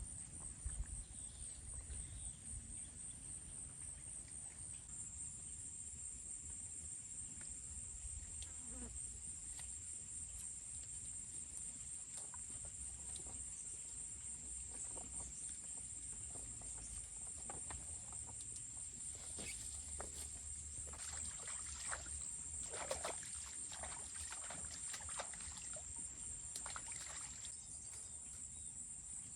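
A steady high-pitched insect chorus with a fast pulsing trill, joined in the second half by a run of scattered clicks and knocks.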